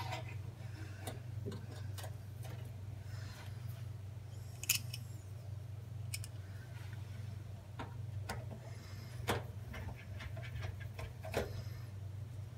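Scattered small clicks and metallic taps as a new oven temperature probe, its wire connector and a screwdriver are worked against the sheet-metal back of an electric range, the sharpest click about four and a half seconds in. A steady low hum runs underneath.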